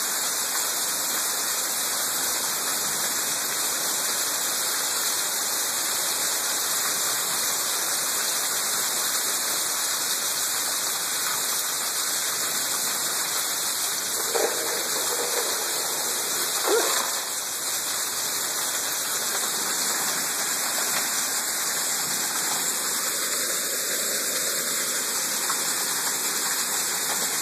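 Steady hiss of a heavy fall of small hail and rain.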